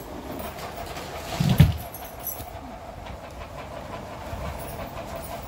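Steady whirring hum of an electric table fan running in the room, with one dull thump about a second and a half in.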